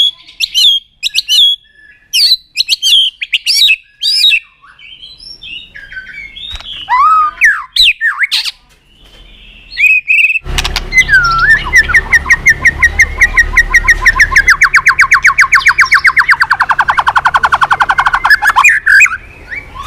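White-rumped shama singing loudly: separate whistled phrases and sweeping notes, then from about halfway a long, fast trill that slowly falls in pitch for about eight seconds. A low hum comes in with the trill.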